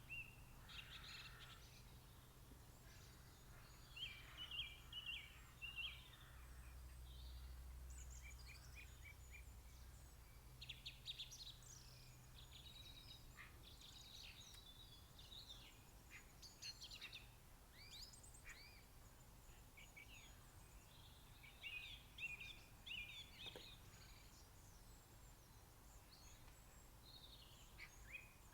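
Several garden songbirds singing and calling at once, faint short chirps, trills and whistled phrases overlapping throughout, over a low steady rumble.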